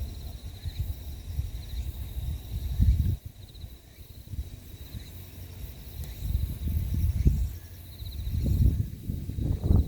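Wind buffeting the microphone in uneven gusts, over a steady high trill of insects chirping in short repeated pulses.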